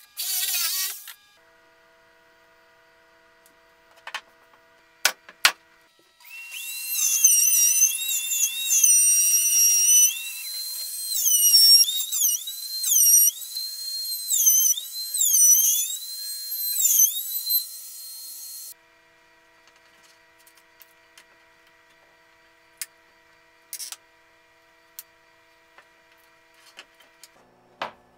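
A compact trim router whining at high speed: it runs steady at first, then its pitch dips again and again as the bit cuts along the edge of a curved plywood piece, and it stops sharply. In the first second a jigsaw cut ends, and a few light knocks of wood on the bench come before and after the routing.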